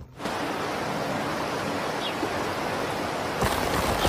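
Steady rushing of a rocky stream, an even wash of water noise that gets louder about three and a half seconds in.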